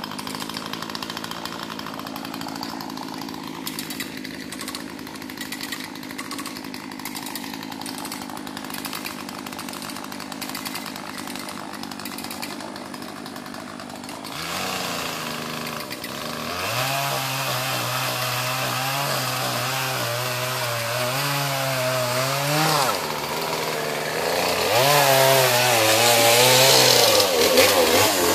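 Chainsaw engine running, quieter for the first half, then louder from about halfway, its pitch wavering up and down, with the loudest stretch near the end.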